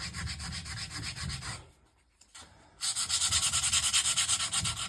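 Sandpaper rubbing on old varnished wood of a table, taking the varnish off, in quick even strokes. It stops about a second and a half in, then starts again louder about three seconds in.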